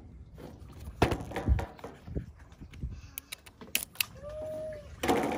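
Handling of the Apple Magic Trackpad 2 retail box: knocks and rustles of the packaging, loudest about a second in, with sharp clicks around three to four seconds in. A short pitched call sounds just after four seconds.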